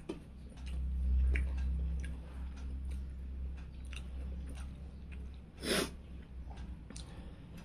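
Close-up chewing and wet mouth clicks as a person eats rice and fried fish, over a steady low hum. About three-quarters of the way through, one short, loud breathy hiss stands out.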